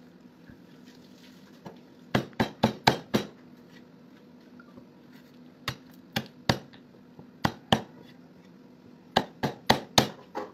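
Cleaver chopping meat in quick runs of three to six sharp strikes, with short pauses between runs.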